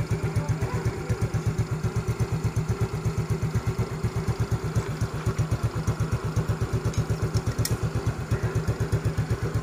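Yamaha Fino 125 scooter's single-cylinder engine idling through a gutted muffler, making a steady, even chug of exhaust pulses.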